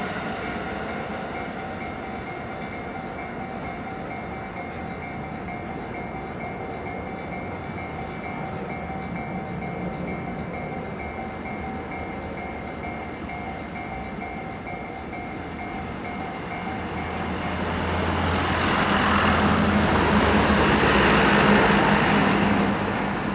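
Japanese railway level-crossing warning bell ringing steadily. An electric train passes through the crossing, its rumble and wheel noise swelling over the last several seconds and peaking just before the end.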